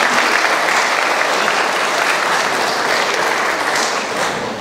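Audience applauding, dense and steady, easing off slightly near the end.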